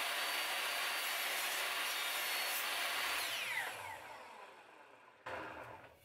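Electric miter saw running as its blade cuts through a small piece of pine, then the motor is released about three seconds in and the blade spins down with a falling whine. A short knock comes near the end.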